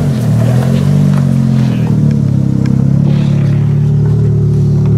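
Car engine idling steadily at an even pitch.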